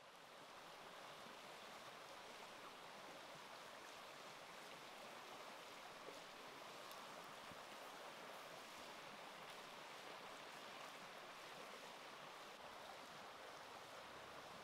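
Faint, steady bubbling hiss of snake soup boiling hard in an uncovered clay pot over a wood fire.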